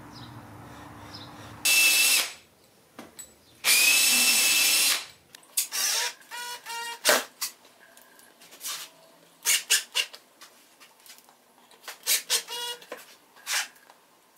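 Cordless drill-driver driving screws through an aluminium angle into plywood: two longer runs of the motor about two and four seconds in, then a string of short trigger bursts as the screws are seated.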